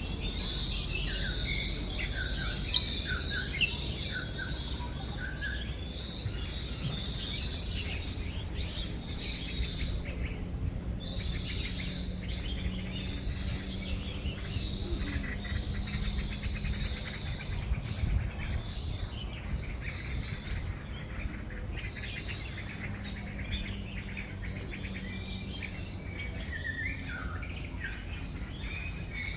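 Many songbirds chirping and calling together, short overlapping notes and trills, in a walk-through aviary, over a faint steady low hum.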